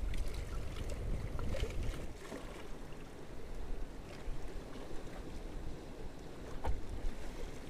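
Sea waves washing against breakwater boulders, with wind buffeting the microphone, strongest in the first couple of seconds, and a few light clicks.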